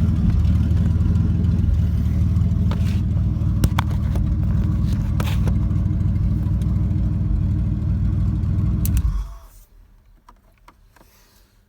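Six-cylinder engine of a Holden VP Commodore skid car held at high revs in a skid, steady with a few sharp clicks and knocks. It cuts off suddenly about nine seconds in, leaving a faint background.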